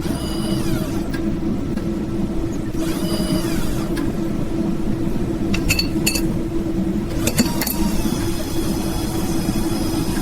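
Steady machine hum with a constant low drone, a few short whining tones and several light clinks about halfway through.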